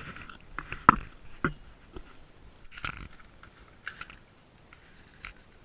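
Packaging being handled while a GoPro is unboxed: scattered, irregular clicks and short crinkles, the sharpest about a second in.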